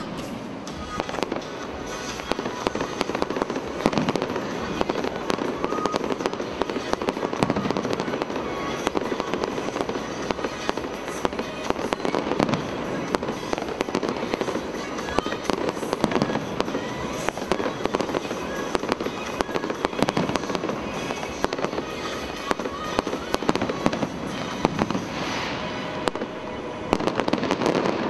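An aerial fireworks display going off in rapid succession: a continuous barrage of bangs and crackling bursts, with music playing underneath.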